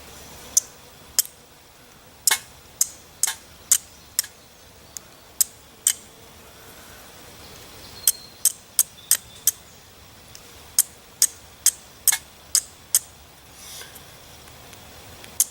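Flint and steel being struck again and again to throw sparks onto charred punkwood: a run of sharp clinks, about two a second, in bursts with a pause of about two seconds midway.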